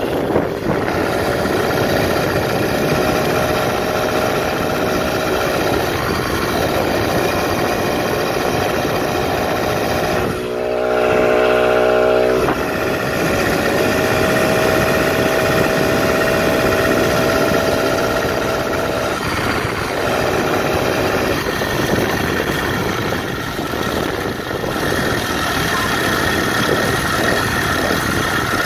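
Small two-stroke bicycle kit engine on a motorized tandem bicycle running while it is ridden along the road. The engine note rises and falls with the throttle and is loudest for about two seconds near the middle.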